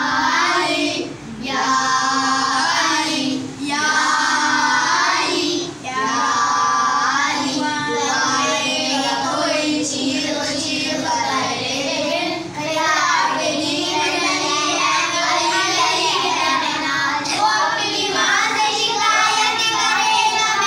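A group of children singing a manqabat, a devotional poem, together. Their voices pause briefly between the first few lines, then carry on.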